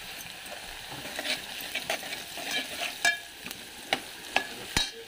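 Sliced onions frying in oil in a metal pot, with a steady sizzle. A metal spoon stirs them, scraping and clinking sharply against the pot several times, most often in the second half.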